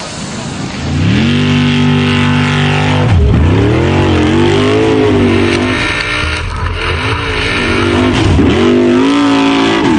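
Off-road vehicle engine revving hard and held at high revs, its pitch rising about a second in, with the revs dropping sharply and climbing back twice.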